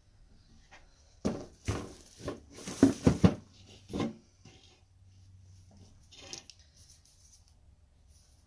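Wooden drawers knocking and scraping against the frame of a chest of drawers as they are handled and pushed in: a run of sharp wooden knocks over about three seconds, then a few fainter clicks.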